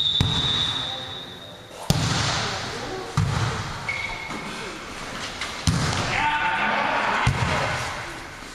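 Referee's whistle blown for the serve, cut off about a second and a half in, then a volleyball rally: about five sharp hand-on-ball contacts (serve, passes, set, attack) a second or two apart, echoing in a gymnasium.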